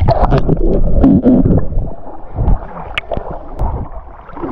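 Water gurgling and sloshing as a swimmer moves through it, the sound passing from underwater to the surface, with a few sharp clicks. It is busiest in the first two seconds and quieter near the end.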